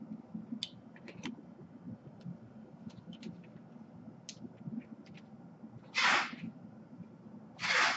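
A few light clicks and taps from handling test leads and tools on the bench. Then come two short bursts of hiss about a second and a half apart, which are the loudest sounds.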